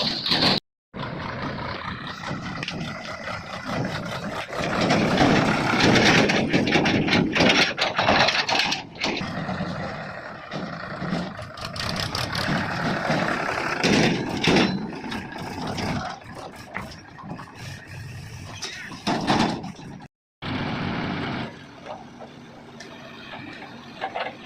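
Diesel engines of a JCB 3DX backhoe loader and tractors running at a mud-loading site, the loader's engine rising and falling in loudness as it works under load. The sound cuts out briefly twice.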